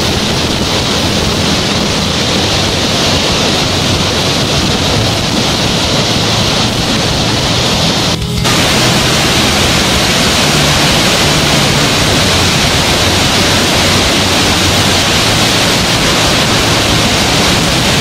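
Steady roar of a large waterfall: water pouring down a high cliff and crashing into the river below, with a short break about eight seconds in.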